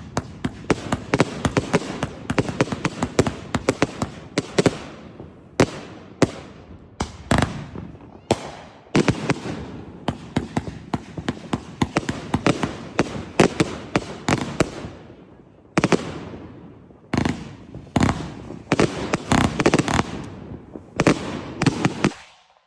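A consumer fireworks cake firing a long sequence of shots: a dense run of bangs and crackling at first, then separate volleys of loud bursts, each fading out. It stops suddenly just before the end, when the cake finishes.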